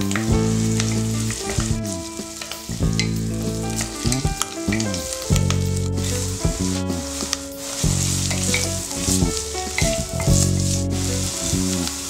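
Garlic, chili and parsley sizzling in hot oil in a pot, a steady hiss with small crackles, stirred with a wooden spatula. Low sustained tones sound underneath.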